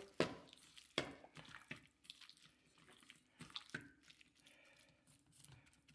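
Faint wet squishing of a plastic-gloved hand kneading sliced beef in an egg, cornstarch and oil marinade in a metal bowl, with a few sharp clicks and soft ticks.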